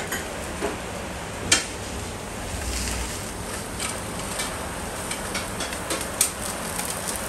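Steady hiss and sizzle of a thick bone-in beef chop grilling over glowing embers, with a few crackles and a sharp click about a second and a half in.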